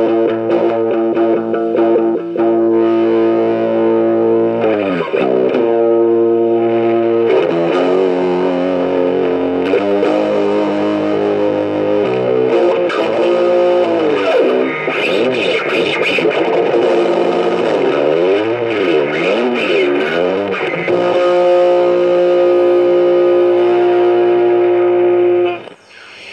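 Heavily distorted electric guitar holding long notes with wide vibrato and sweeping pitch bends, stopping suddenly near the end and leaving a low hiss.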